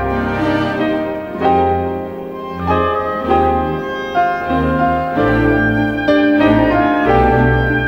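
Instrumental Chinese-style background music: a slow melody of held notes over a low bass line.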